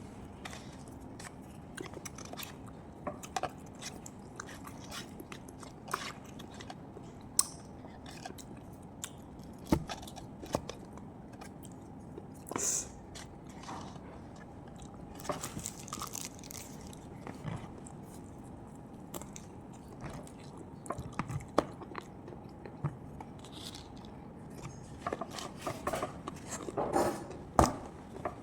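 Close-up eating sounds: a person chewing and biting food, with irregular small clicks and crunches, busier near the end.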